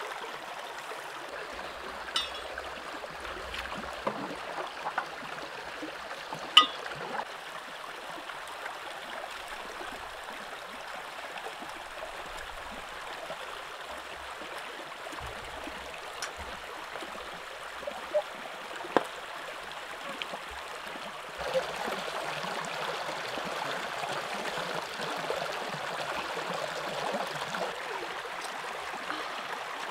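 Shallow rocky stream running over stones: a steady rush of water, with a few sharp clicks. The water becomes louder about two-thirds of the way through.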